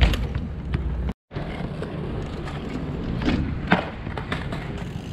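Mountain bike tyres rolling on skate-park concrete, with sharp knocks and clanks as the bikes ride over ramp edges. The sound cuts out for a moment about a second in.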